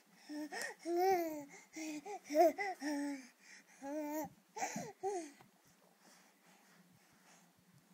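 A baby babbling in a run of about seven short vocal sounds that bend up and down in pitch, stopping about five seconds in.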